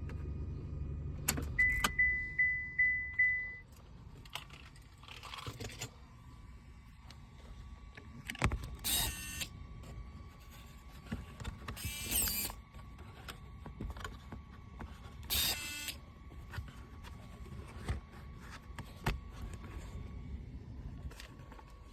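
A pickup truck's warning chime dings five times in quick succession, each ding fading, just after a low rumble cuts off with a click. Later come three short bursts of rattling noise, and a faint steady tone sounds underneath.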